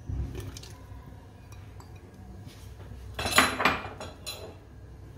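A bowl knocking and clattering against an aluminium pressure cooker as sliced tomatoes and green chillies are tipped into the pot. There is a soft knock at the start, and the loudest clatter comes about three seconds in, followed by a lighter clink a second later.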